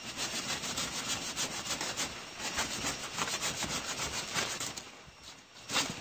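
Hand saw cutting through the green stem of a young avocado tree, in quick even back-and-forth strokes, about three or four a second. The strokes die away about five seconds in, and one more stroke comes just before the end.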